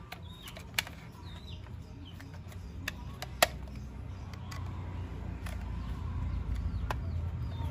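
A few sharp plastic clicks and taps as a screwdriver is worked on a toy locomotive's plastic body, the loudest about three and a half seconds in. Faint bird chirps and a low rumble sit behind, the rumble growing louder near the end.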